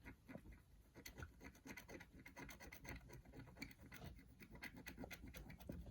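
Faint scratching of a stylus on rainbow scratch paper: many quick short strokes as the black coating is scraped off to colour in a shape.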